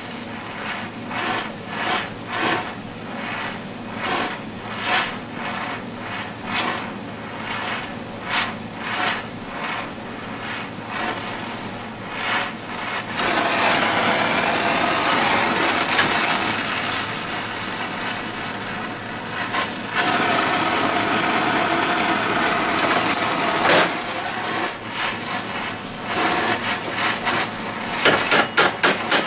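Gas cutting/welding torch flame hissing steadily as it heats a small steel bar red-hot, with a regular ticking through the first half. Near the end a hammer starts striking the hot steel in quick repeated blows to bend it.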